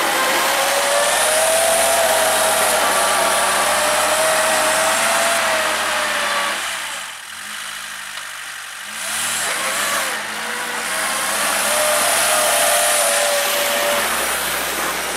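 Homemade tractor's engine running as the tractor pushes snow with its blade, with a steady tone that wavers a little in pitch. It is loud close up, drops to a quieter sound for a couple of seconds around the middle as the tractor moves away, then is loud again.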